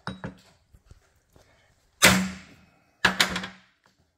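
Metal hammer blows on a ball-peen hammer held as a punch on a small steel cap lying on a steel work table, driving an indent into the cap. Two light taps at the start, one hard ringing blow about two seconds in, then three quick blows about a second later.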